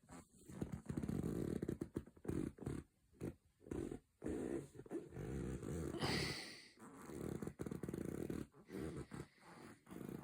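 Snoring heard from a leather armchair: low, rough rumbling breaths in uneven runs of about a second each, with short pauses between them. A brief hissing breath comes about six seconds in.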